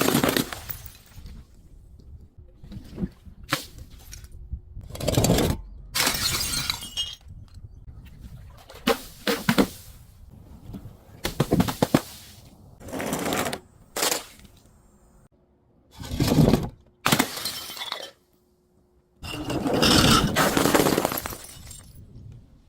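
Glass bottles being smashed one after another: about a dozen separate shattering crashes, some sharp and short and some running on for about a second, with short pauses between them.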